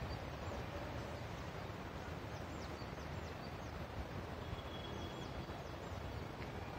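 Steady outdoor background hiss, with a few faint, short, high bird chirps scattered through it.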